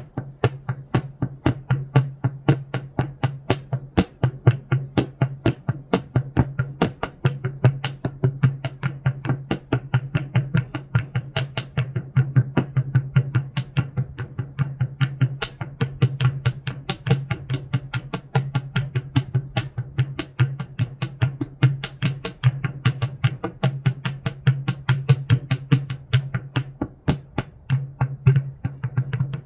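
Noise music of rapid, uneven knocking, about four to five strikes a second, over a steady low hum.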